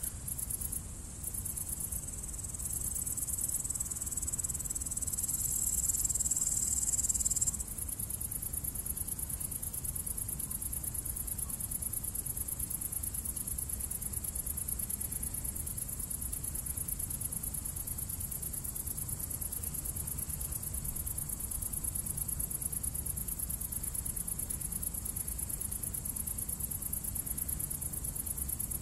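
Insects chirring steadily at a high pitch, louder for the first seven or so seconds and then dropping suddenly to a lower, even level, over a low rumble.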